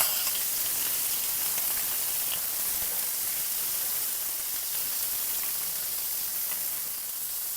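Shrimp sizzling in hot olive oil in a wok: a steady hiss with faint pops that slowly eases off.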